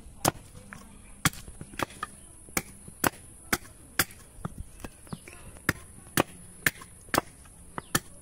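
A hand-held knife blade chopping and shaving a block of bamboo root that stands on a wooden stump, about two sharp chops a second at an uneven pace.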